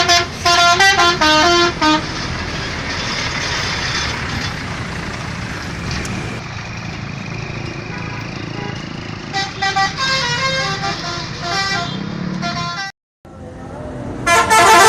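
Indonesian bus 'telolet' multi-tone musical horn playing quick runs of short notes that step up and down in pitch: one flurry in the first two seconds, another from about nine to thirteen seconds, and a loud one starting near the end. Steady traffic noise fills the gaps.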